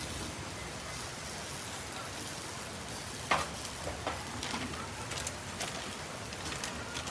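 Light clicks and knocks of cooking utensils and ingredients in a mixing bowl as cabbage is added to okonomiyaki batter, over a steady background hiss. One sharper knock comes about three seconds in.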